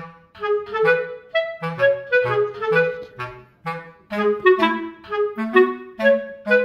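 Background music: a bouncy tune of short, separate notes over a bass line.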